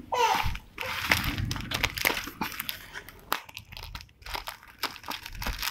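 Clear plastic parcel wrap crinkling and rustling as it is handled and cut open with scissors, in irregular crackles.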